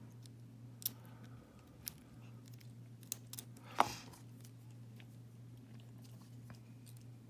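Lock pick clicking and scraping against the pins inside a Winkhaus euro cylinder during single-pin picking: a few scattered short, sharp clicks, the loudest a little before four seconds in, over a steady low hum.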